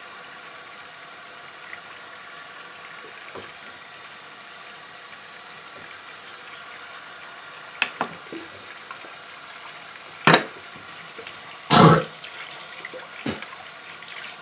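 Water running steadily from a bathroom tap into the sink, with a few short sharp knocks past the middle and one louder, longer one near the end.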